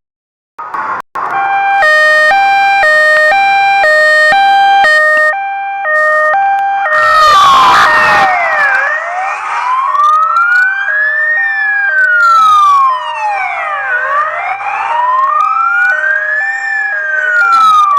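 Fire truck sirens: a two-tone hi-lo siren switches quickly back and forth between two pitches, and about seven seconds in, after a short noisy burst, a wailing siren joins it, slowly rising and falling twice.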